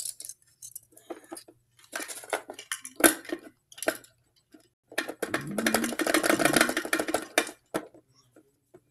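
Hard plastic toy parts clicking and clattering as hands move toy garbage bins and lids around a toy garbage truck. About five seconds in there is a denser, louder rattle lasting about two seconds.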